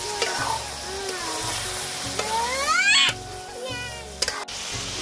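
Duck meat sizzling in oil in a black iron wok while a metal ladle stirs and scrapes it. A rising squeal peaks about three seconds in, and a few sharp clicks come near the end.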